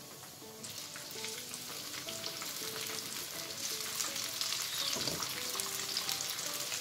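Breaded chicken fillets shallow-frying in hot oil in a frying pan: a dense, crackling sizzle that grows louder about a second in and stays strong as more fillets go into the pan.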